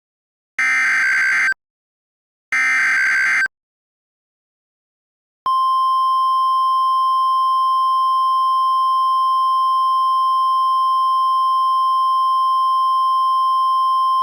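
Emergency Alert System SAME header: two short bursts of warbling digital data tones, about a second each with a second of silence between. About five seconds in, a single steady alert tone near 1 kHz begins and holds without change, the NOAA Weather Radio warning alarm that precedes a tornado warning broadcast.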